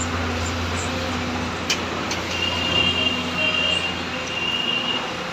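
Steady outdoor background noise like distant road traffic, with a low hum underneath. There is a single sharp click about 1.7 seconds in, and a thin high tone comes and goes in the second half.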